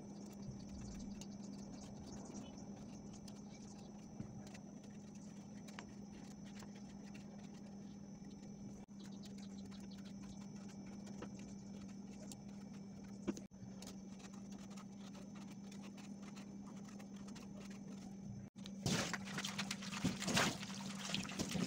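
Knife peeling jiló (scarlet eggplant) by hand: faint scraping and small clicks over a steady low hum. About three seconds from the end, tap water runs loudly as the peeled fruit is rinsed in a stainless steel sink.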